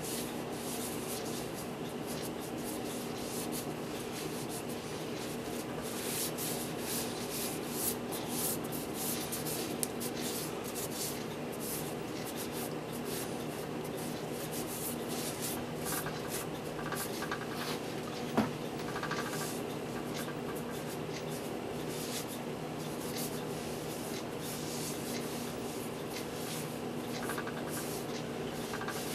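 Terry-cloth towel rubbing over the rough surface of a concrete statue in repeated wiping strokes, clearing off sanding dust. A steady low hum runs underneath, and there is one sharp click about two-thirds of the way through.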